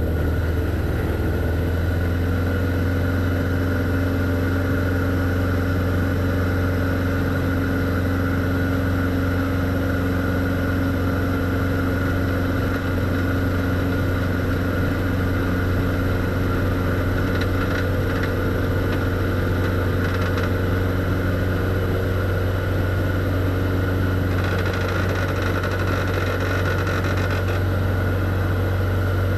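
Single-engine light aircraft's propeller and piston engine running at takeoff power through the takeoff roll and lift-off, a loud, steady drone that holds one pitch, heard from inside the cockpit.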